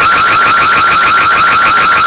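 Electronic alarm siren sounding continuously: a loud, high tone with a rapid, even warble.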